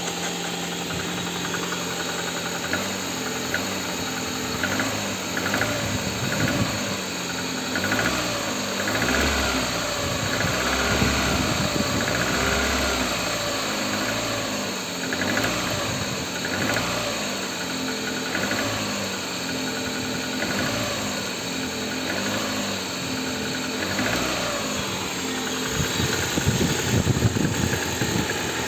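Lada VAZ-2112 engine running with a knock, revved up and down over and over, louder near the end. The owner cannot tell whether the knock comes from the pistons or the hydraulic valve lifters.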